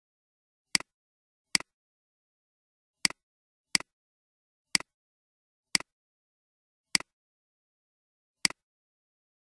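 Computer mouse clicking: eight short, sharp clicks at uneven gaps of about a second, each a quick press-and-release double click, with nothing heard between them.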